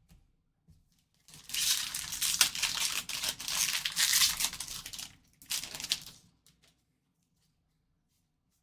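Trading-card pack wrapper being torn open and crinkled, starting about a second in and lasting about four seconds, with a second, shorter spell of crinkling about five and a half seconds in.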